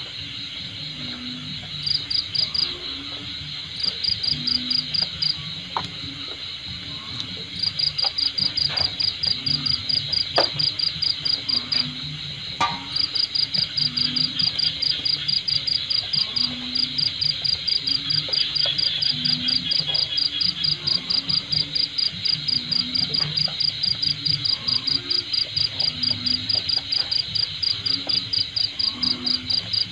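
Insects calling: a loud, fast, evenly pulsed chirping that starts about two seconds in and goes on in long bouts with short breaks, over a steady high insect drone.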